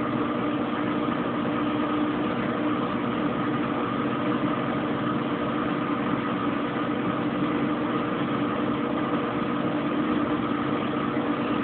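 Kenmore Oasis top-load washing machine in its spin cycle: the motor turning the drum with a steady hum and whine, speeding up towards a high-speed spin.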